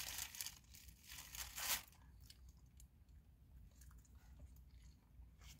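Plastic bag crinkling as a taco is handled in it, with a sharp crackle just before two seconds in, followed by faint crunching and chewing.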